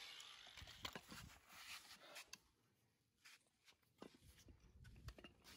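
Near silence, with a few faint clicks and taps.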